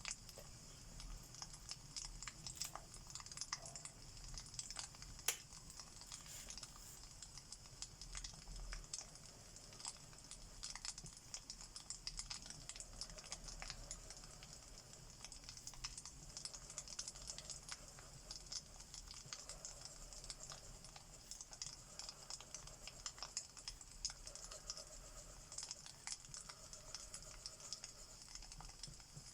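Wood fire crackling in a fireplace: irregular small pops and snaps over a steady hiss, with one sharper snap about five seconds in.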